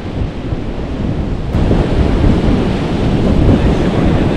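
Wind rumbling on the microphone over the wash of surf. About a second and a half in, the sound changes abruptly to a louder, brighter wash of waves and wind.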